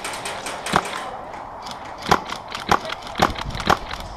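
Airsoft guns firing: a sharp crack just under a second in, then four more about half a second apart from two seconds in, over many fainter clicks.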